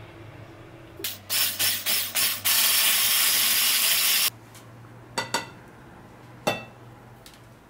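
A whisk beating mascarpone and custard in a glass bowl: a few separate strokes, then about two seconds of fast, continuous whisking that stops suddenly. Later a spoon knocks against the bowl three times while scooping the cream.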